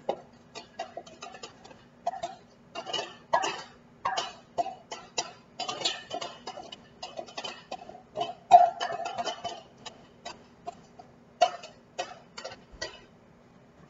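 A knife scraping and tapping chopped onions out of a food-processor bowl into a pan: a run of short, irregular scrapes and knocks, the loudest about halfway through, over a steady low hum.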